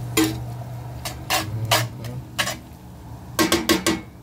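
Metal cookware clanking on a cast-iron skillet at the grill: a series of sharp knocks spread out, then a quick cluster of three or four near the end, some ringing briefly.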